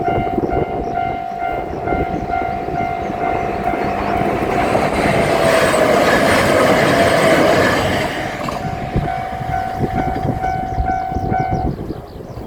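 Japanese level crossing alarm ringing its steady repeating electronic ding while a diesel railcar passes over the crossing. The train is loudest for about four seconds in the middle, where its rumble and wheel noise drown out the bell. The bell stops abruptly near the end, after the train has cleared.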